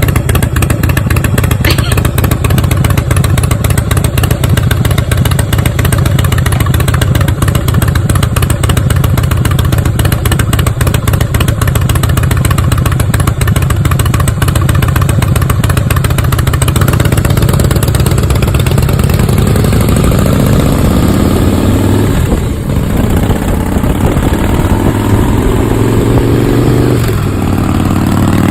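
Harley-Davidson V-twin motorcycle running loud through its exhaust with a fast pulsing beat. About two-thirds of the way in, the engine pitch climbs, breaks off, then climbs again: the bike accelerating and shifting up a gear.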